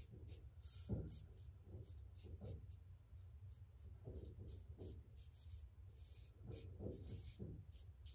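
Double-edge safety razor scraping stubble through shaving lather in short strokes, a quick run of faint scratches over a steady low hum.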